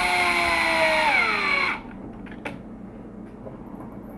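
Black+Decker 20V cordless drill/driver running a screw into an RC truck's plastic chassis. Its motor whine drops in pitch and stops about two seconds in, as the trigger is eased off before the screw is fully tight. A light click follows.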